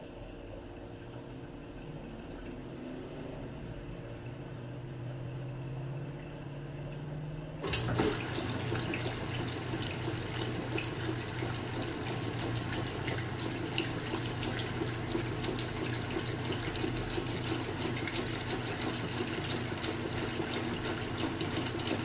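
Vintage GE Spacemaker portable top-load washing machine: a low hum as it fills, then about eight seconds in a sharp clunk as the agitator starts. After that comes steady churning and sloshing of water and clothes in the tub.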